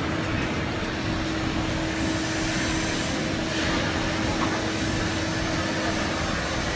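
Steady rushing background noise with a constant low hum and no clear events.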